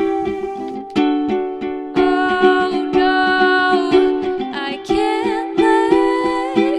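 Background music of bright plucked strings in a steady rhythm, with a sustained melody line that glides in pitch near the end.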